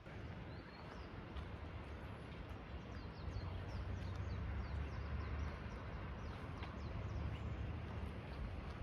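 Steady rush of river water with a deep low rumble, growing louder about three seconds in, and many short high bird chirps over it.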